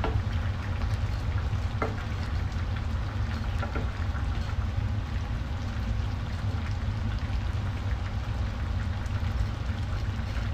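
Coconut-milk stew of vegetables and tilapia simmering in a pan, with a steady bubbling crackle over a constant low hum, and a wooden spoon knocking lightly against the pan a couple of times.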